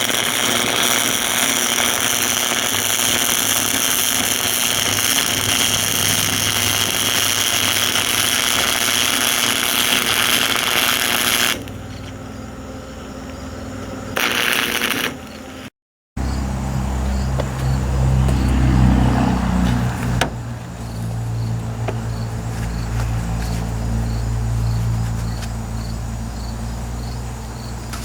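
Flux-core wire-feed welder arc crackling and hissing steadily as a bead is run on steel. It stops about eleven seconds in and comes back briefly a few seconds later. After a break, a lower steady hum takes over.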